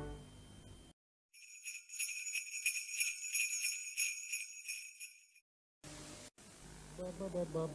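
Sleigh bells shaken in a steady rhythm, about four shakes a second, for about four seconds, starting a second in and stopping cleanly: a jingle sound effect over a countdown title card. Faint music begins near the end.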